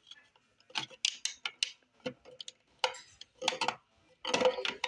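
Plastic makeup tubes and containers tapping and clinking against a clear acrylic organizer as they are handled: a string of light, irregular clicks and knocks.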